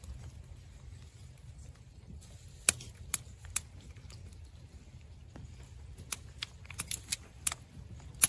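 Sharp clicks and knocks of thin split-wood kindling sticks being handled and stacked into a teepee fire: three spaced knocks, then a quicker cluster a few seconds later and one more near the end, over a low steady rumble.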